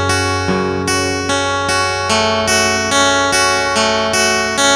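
Sigma acoustic guitar playing a picked, arpeggiated intro, with a new note or chord sounding about every half second over a ringing low bass note.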